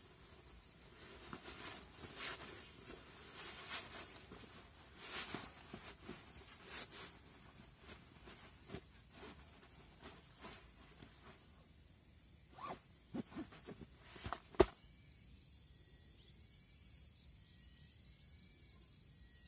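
Nylon sleeping bag being stuffed and compressed into its stuff sack: repeated swishing and rustling of synthetic fabric, followed by a few sharp clicks, one much louder than the rest. About three-quarters of the way through it gives way to insects trilling steadily, with a few chirps.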